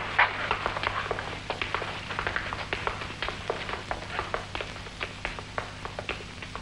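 Footsteps of several boys walking across the classroom and out, a quick, irregular patter of shoe taps that grows fainter and sparser as they leave.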